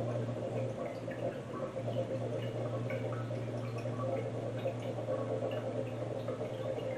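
Carbon dioxide bubbling up through cider inside a stainless corny keg, a soft irregular gurgling with many small pops, as gas from a CO2 tank is fed down a dip tube into the liquid to force-carbonate it. A steady low hum runs underneath.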